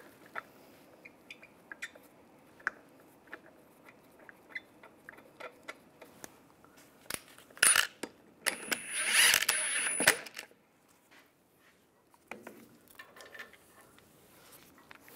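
Steel lug bolts clicking and clinking against the alloy wheel as they are threaded in by hand. About eight seconds in, a cordless impact wrench runs in short bursts for about two seconds with a high whine, spinning the bolts in snug.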